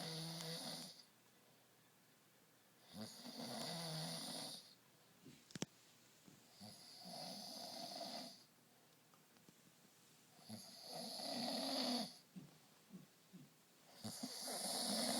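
Snorting, snore-like breaths at an even pace, one about every three and a half to four seconds, each lasting about a second and a half. A single sharp click falls between the second and third.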